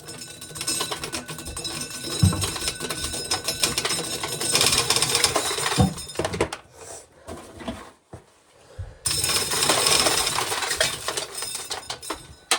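Corn sheller rattling as ears of corn are fed through, kernels clattering rapidly. It runs in two bouts with a short pause between them.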